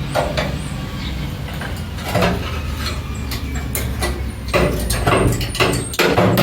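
Rusted pickup-bed sheet metal being handled and shifted: a few scrapes and metal knocks, the busiest near the end with a faint metallic ring, over a steady low rumble.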